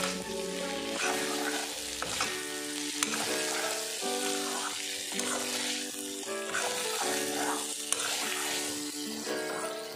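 Chicken pieces frying and sizzling in a metal kadai as a spoon stirs them, with a couple of sharp scrapes or clinks of the spoon against the pan. Background music with a melody plays under it.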